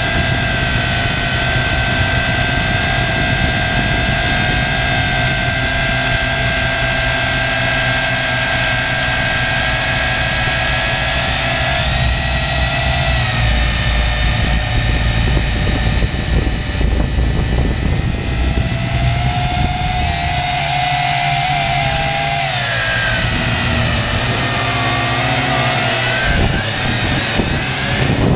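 Multirotor drone's electric motors and propellers whining steadily at close range, several held tones shifting in pitch a few times as the throttle changes, over a low rush of wind.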